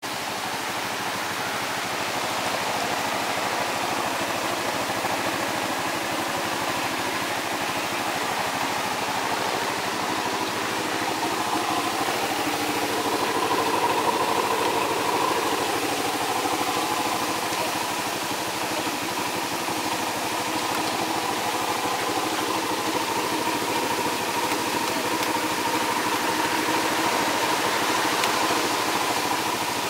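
A 300cc quad's single-cylinder engine idling steadily.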